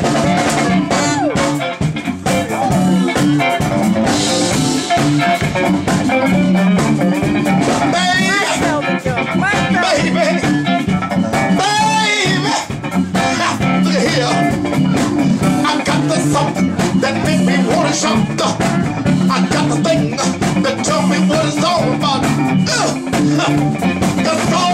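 Live funk-soul band playing loudly with a steady beat, a male singer at the microphone over saxophone and electric guitar.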